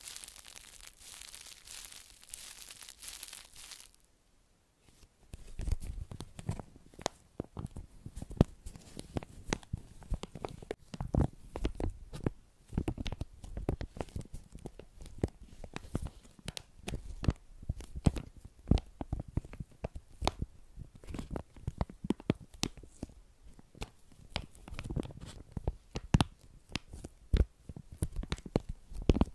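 Close-miked ASMR trigger sounds: a dense crinkling, tearing rustle for about four seconds, then, after a short pause, a long run of irregular soft taps and clicks with low thuds.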